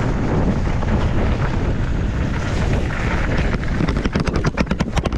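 Wind rushing over an action camera's microphone, with the low rumble of a mountain bike riding down a dry downhill trail. About four seconds in, a quick run of sharp clicks, roughly eight a second, comes through.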